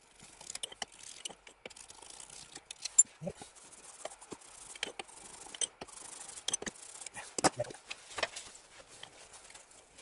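Steel pliers clicking and scraping against a metal engine seal housing as the stuck remains of an old seal are pulled out: irregular small clicks and scrapes, with a sharper click about three seconds in and a few more around seven to eight seconds.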